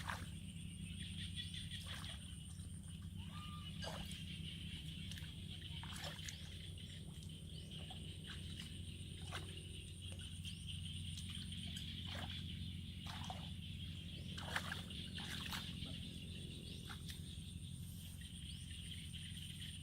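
Outdoor ambience: a steady high-pitched drone over a low hum, with scattered short clicks and splashes.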